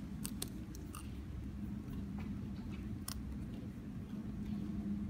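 A few short, sharp crunches and crinkles of someone eating a packaged snack at close range, several in the first second and one more about three seconds in, over a steady low hum.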